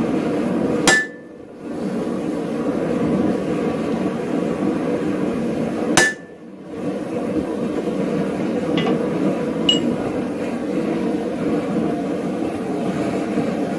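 Blacksmith's hammer striking a forged steel J-hook on the anvil: two sharp blows about five seconds apart, each ringing briefly, then a couple of lighter clinks, over a steady background noise.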